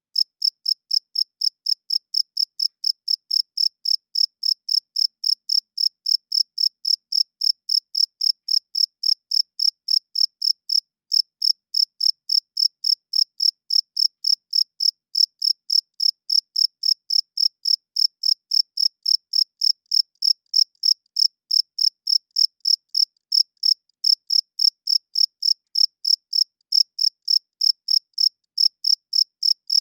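Cricket chirping steadily: a single high-pitched chirp repeated evenly, about three a second.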